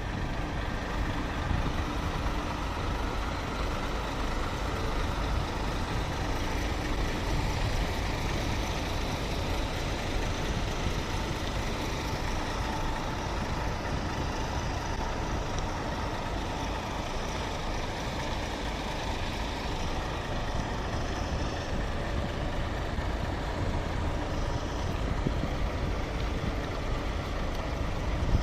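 Heavy diesel bus engines running at a roadside stop: a steady low rumble.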